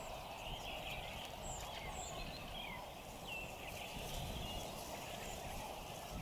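Wild birds calling in short chirps and brief whistles, several each second, over a steady background hum.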